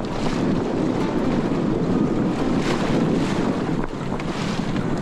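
Steady rush of water splashing along the bow of a small sailing canoe as it pushes through choppy waves, with wind buffeting the microphone.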